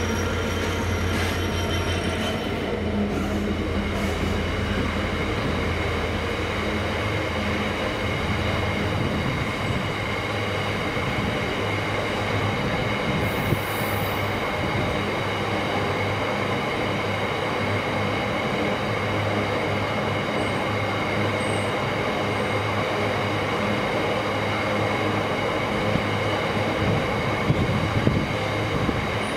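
A GB Railfreight Class 66 diesel locomotive's two-stroke EMD engine drones low as it passes in the first few seconds. A long rake of freight wagons then rolls steadily by, its wheels squealing in steady high tones over the rumble, with a few light knocks near the end.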